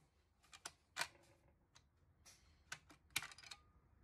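Light clicks and knocks of an M1 Garand's action being handled after a light strike, where the round failed to fire. A louder run of sharp metallic clacks comes a little over three seconds in.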